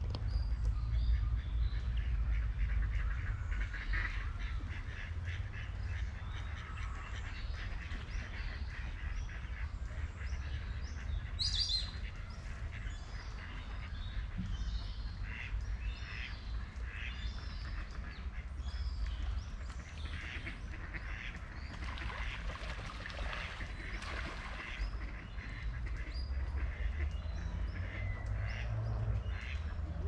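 Ducks quacking and small birds chirping, many short calls scattered throughout and thicker about two-thirds of the way in, with one sharp high chirp a little over ten seconds in. A steady low rumble runs underneath.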